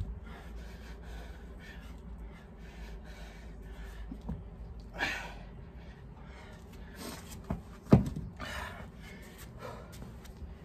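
A man breathing hard mid-workout, with loud gasping breaths every second or two, and one sharp thump about eight seconds in, the loudest sound.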